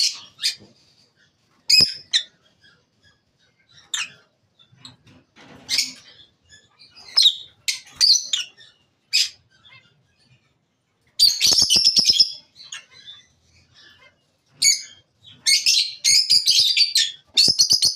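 Lutino peach-faced lovebirds chirping in short, high-pitched calls with brief pauses between them. A dense burst of calls comes about eleven seconds in, and the calling is near-continuous over the last few seconds.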